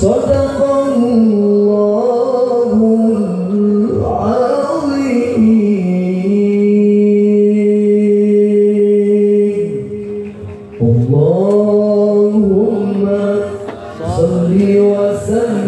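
A male qari's voice in melodic Quran recitation (tilawah), drawing out a phrase with ornamented runs that bend up and down in pitch and one note held level for about three seconds. The voice drops briefly about ten seconds in before the ornamented line resumes.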